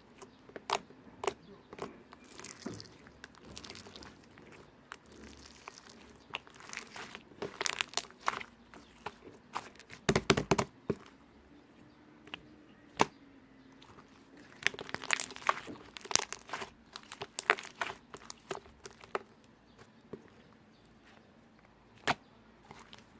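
Slime being squished and poked by hand, making irregular sticky clicks and pops, with a denser cluster of pops about ten seconds in.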